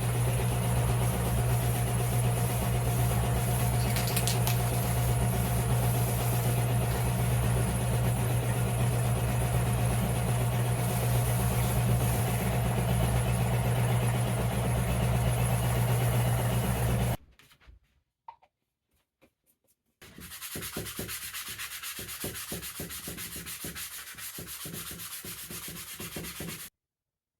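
Electric finger belt sander running steadily and sanding white cedar wood. The sound breaks off about 17 seconds in, and after a short pause a quieter, scratchy rubbing follows for several seconds, then stops.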